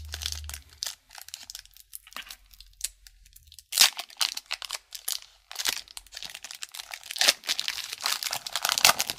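Foil hockey card pack being torn open and its wrapper crumpled in the hands: irregular crinkling and crackling, loudest about four seconds in and again over the last two seconds.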